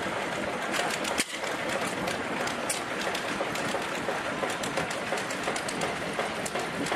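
1929 Fairbanks Morse two-cylinder, 5,000-cubic-inch stationary engine running without load, a steady clatter of many rapid clicks.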